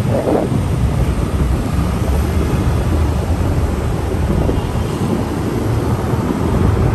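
Riding noise from a moving motorcycle: wind buffeting the microphone in a steady low rumble, mixed with engine and road noise.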